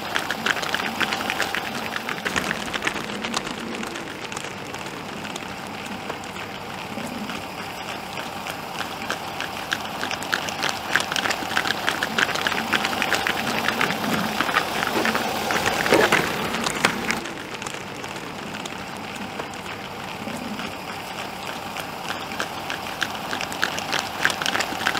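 Hooves of a bison herd clattering on asphalt as the animals walk and trot along the road: a dense patter of many small clicks. A brief louder sound stands out about 16 seconds in.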